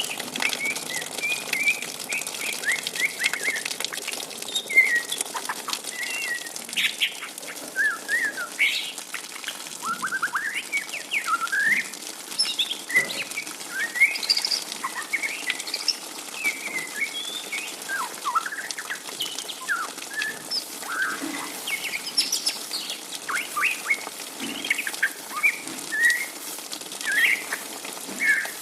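Juvenile white-rumped shama singing its twittering 'ngriwik' subsong: a continuous stream of short, varied chirps and quick whistled slurs.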